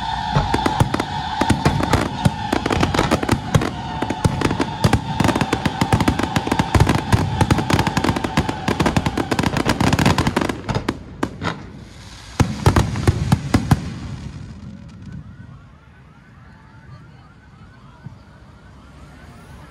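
A long string of firecrackers crackling in a dense, rapid run, with a steady high tone over it, stopping about halfway through. A shorter burst of cracks follows a couple of seconds later, then the sound dies down.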